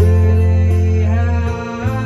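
Live band music: acoustic guitar and bass guitar playing, with a strong sustained bass note. A man's singing voice comes in about a second in, bending in pitch.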